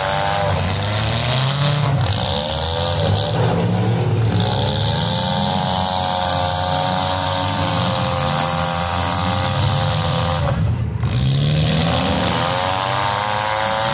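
Several demolition derby car engines revving up and down at once over a steady hiss.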